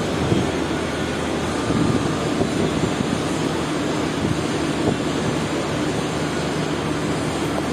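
A steady mechanical drone with a few low steady tones under a noisy hiss, unchanging throughout, like machinery running nearby.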